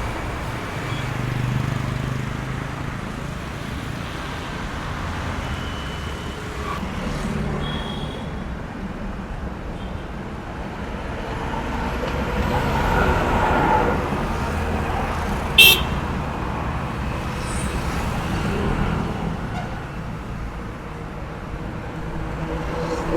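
Roadside traffic: vehicles driving past with steady engine and tyre noise, one growing louder and passing about halfway through. A sharp click about two-thirds of the way in is the loudest moment, and a couple of short high beeps come earlier.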